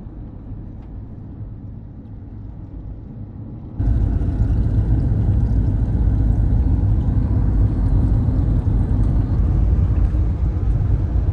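Steady low road rumble and engine noise heard inside a moving passenger van. About four seconds in, it suddenly jumps louder and fuller and stays that way.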